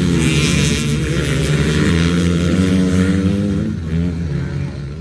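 Several dirt bikes racing past at full throttle, their overlapping engine notes wavering in pitch as the riders shift and work the throttle. The engines fade as the bikes pull away, from about four seconds in.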